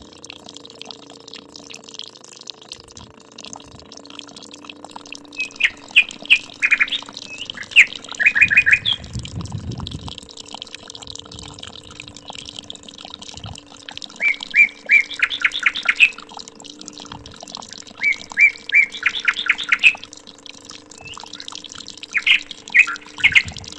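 Birds chirping in quick runs of high notes, four or five short bouts, over a steady low hum from a small battery-powered DC water pump motor, with a faint trickle of water from its spout.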